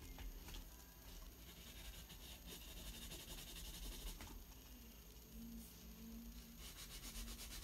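Faint scratching of a Koh-i-Noor Triograph 2B graphite pencil shading on paper.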